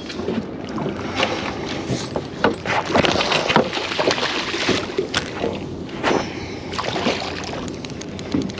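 Irregular knocks and clicks with water splashing around a small boat while a hooked small mulloway (jewfish) is fought and brought alongside.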